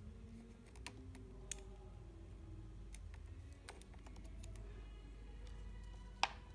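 Faint, scattered light clicks of a plastic fishing float, line and weights being handled over a plastic bottle of water, with a sharper click about six seconds in.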